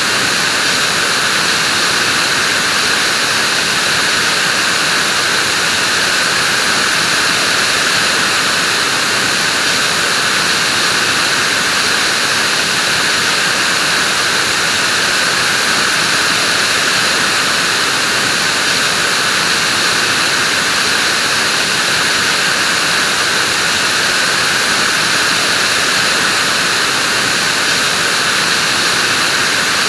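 Vacuum cleaner running steadily, a constant hiss with a high whine and no change in speed.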